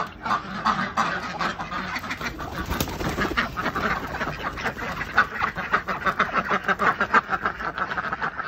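A flock of domestic ducks quacking, many short quacks overlapping in quick succession without a break.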